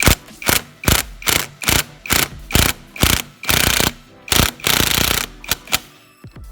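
Ratchet wrench being worked in short strokes, about two clicks a second, with two longer runs of continuous ratcheting about halfway through and near the end.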